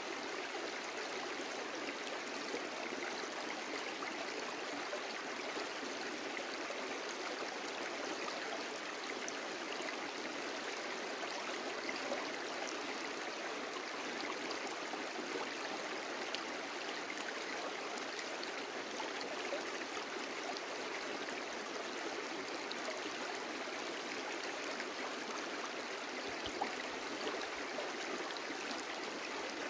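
A brook flowing: a steady, even rush of running water.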